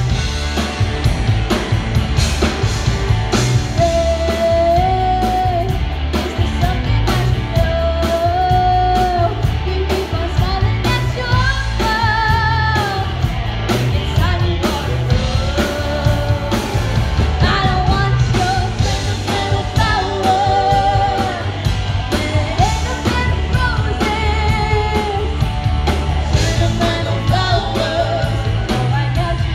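Live rock band playing: a woman sings lead, holding notes with vibrato, over electric guitars and a drum kit.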